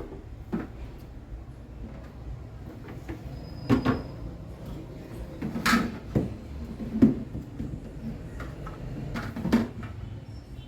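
Refrigerator shelves and drawers knocking and clattering against the fridge's inside as they are slotted back into place: a handful of separate knocks, the loudest about seven seconds in, over a low steady hum.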